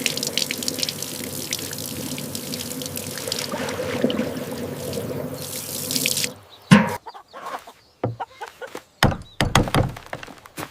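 Water running or pouring in a steady stream for about six seconds, then cutting off suddenly. A string of short, separate knocks and thuds follows.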